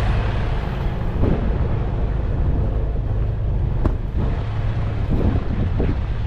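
Steady low rumble of idling vehicle engines mixed with wind buffeting the microphone, with a single sharp click about four seconds in.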